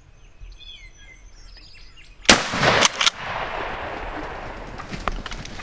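A single shotgun blast about two seconds in, with its report rolling away through the woods for a few seconds; a turkey is being shot. Songbirds chirp faintly before the shot.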